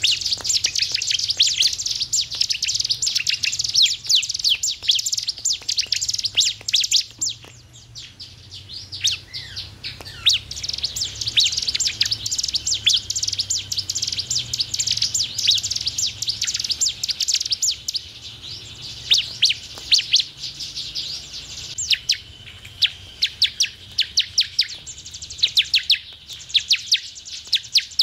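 Bar-winged prinia (ciblek) singing: long runs of rapid, high, sharp chattering notes, broken by short lulls about a third of the way in and again past three-quarters of the way through.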